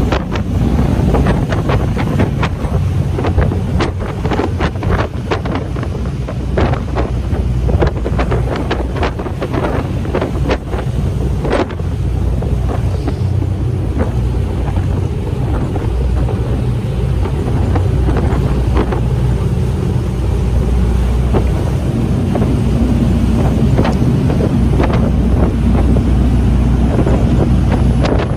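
A motor boat under way: a steady low engine rumble with churning wake water and wind buffeting the microphone, and scattered short crackles, mostly in the first half.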